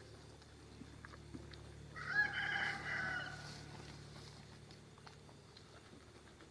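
A rooster crowing once, about two seconds in.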